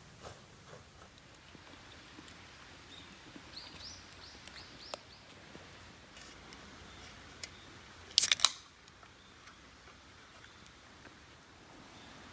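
Quiet outdoor background with faint scattered crackles. A few seconds in comes a quick run of five or six short, high, rising chirps. About eight seconds in there is a brief loud clatter of sharp clicks.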